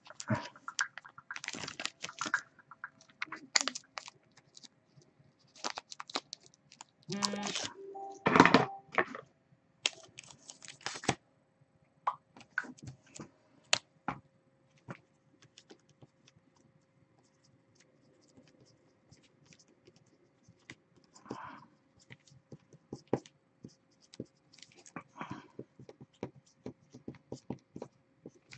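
Plastic card sleeves and a rigid top loader being handled: short bursts of plastic rustling and sliding with scattered clicks and taps, separated by pauses, then a marker pen writing a label.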